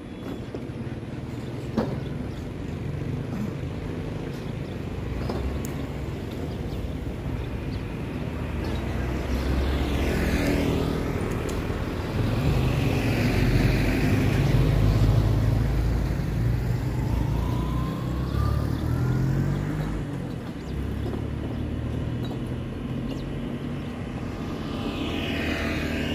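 Road traffic: motorbike engines and vehicles passing by, with a step-through motorbike carrying two riders running close by and loudest about halfway through. A short rising engine whine follows, and another motorbike approaches near the end.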